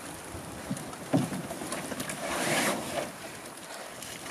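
Gear being loaded into a canoe: a thump about a second in as a pack goes down in the hull, then a rustling scrape of bags being shifted around two to three seconds in.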